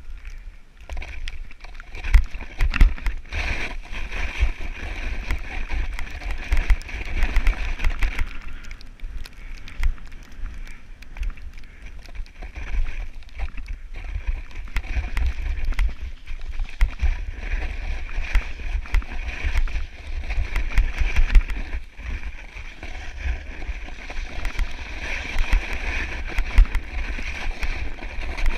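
Wind buffeting a body-worn camera's microphone: a low, gusty rumble with frequent sharp thumps over a steady hiss.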